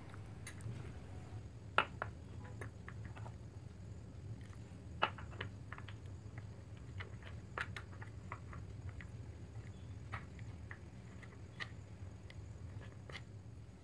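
Metal spoon stirring ground spices and water into a paste in a small glass bowl: soft wet squishing with scattered light clinks of the spoon against the glass, the loudest about two seconds in and again about five seconds in, over a low steady hum.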